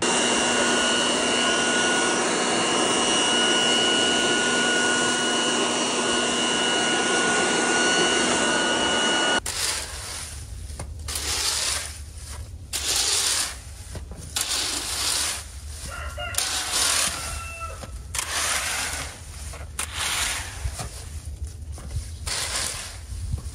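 A leaf blower runs steadily at full power for about nine seconds, blowing dry leaves across brick pavers, then stops abruptly. After that a leaf rake scrapes again and again through dry leaves on the pavers, roughly a stroke every second, and a chicken calls briefly about two-thirds of the way in.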